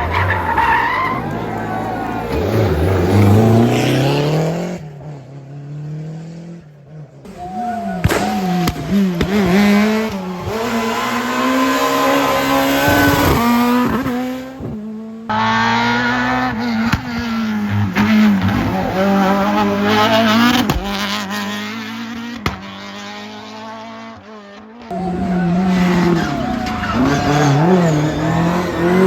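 Rally cars driven hard: engines revving up and dropping back again and again through gear changes and lifts, with tyre squeal. The sound cuts abruptly several times from one car to the next.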